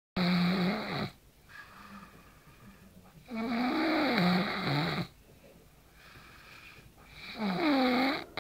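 A person snoring heavily in sleep: three long, loud snores about three and a half seconds apart, each with a wavering pitch, and quieter breaths between them.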